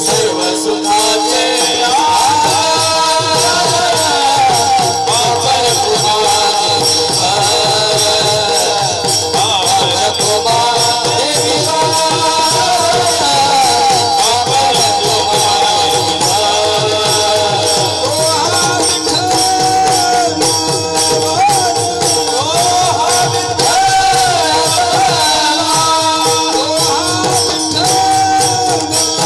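Devotional kirtan music: voices singing a bhajan melody over a steady, fast clash of small hand cymbals (taal) played by the chorus.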